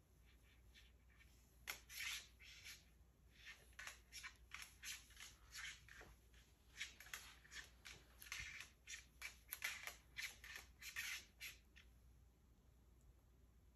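A cockatoo moving about on a hard tabletop with a macadamia nut in its beak makes a faint, irregular run of light clicks and scrapes lasting about ten seconds. The sounds stop near the end.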